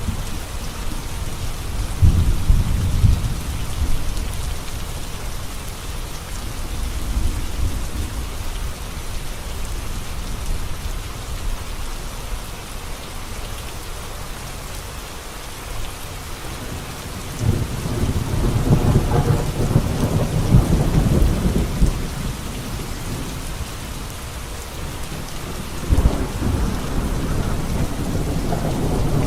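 Heavy rain falling steadily on a road, with low rumbles of thunder rolling in about two seconds in, again for several seconds past the middle, and once more near the end.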